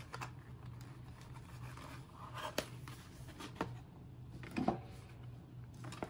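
Hands handling cardboard packaging and boxed lock parts: soft rustling with a few light clicks and knocks, the loudest about three-quarters of the way through.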